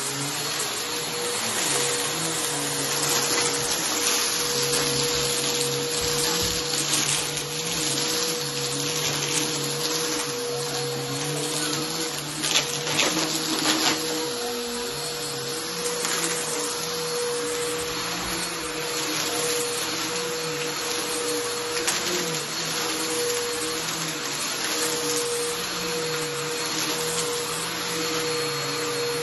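Bissell bagless upright vacuum running steadily as it is pushed back and forth over a thick shag rug, the motor's pitch wavering a little with each stroke. About halfway through there is a brief burst of louder clattering.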